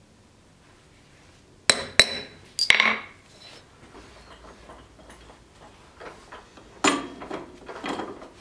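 Steel striking steel: sharp, ringing metallic clinks and clanks, two hits about two seconds in, a quick cluster near three seconds, and another run of clanks near the end.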